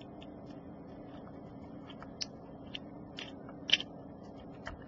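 Light clicks and taps of a wooden stick against the small plastic walkway between the cab and tender of an HO-scale model steam locomotive, as the walkway is set in place. A handful of sharp ticks starting about two seconds in, the loudest about three-quarters of the way through, over a faint steady hum.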